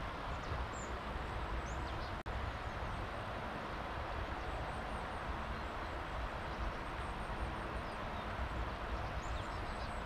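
Steady rushing outdoor noise with faint, high bird chirps over it. The sound drops out for an instant about two seconds in.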